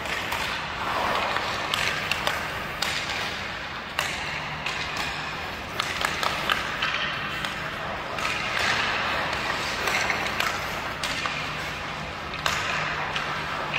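Hockey skate blades carving and scraping the ice in swelling strokes, with sharp taps of a stick blade handling the puck.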